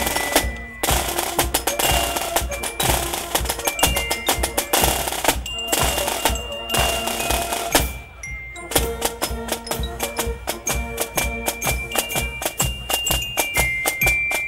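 Marching band playing live: snare drums beat a steady march rhythm under bugles and a bell-lyre glockenspiel. The drumming breaks off briefly just before one second in and again around eight seconds.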